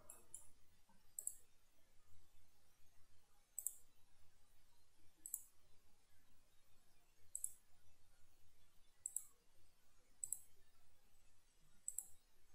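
Computer mouse button clicks: about nine short, sharp clicks spaced irregularly a second or two apart, each a quick press and release. A faint low hum runs underneath.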